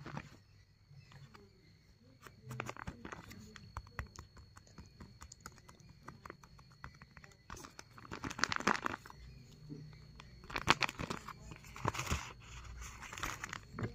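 Paper rustling and crinkling as hands handle a homemade paper blind bag and a small paper slip, with scattered small clicks and a few louder crinkles in the second half.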